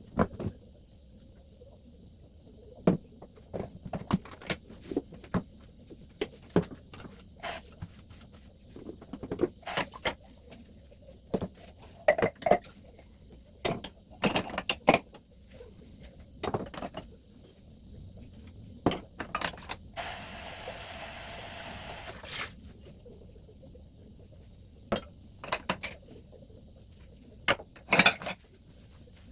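Irregular clinks and knocks of dishes, jars and containers being handled and set down while a refrigerator is cleaned out, with a brief steady hiss about twenty seconds in.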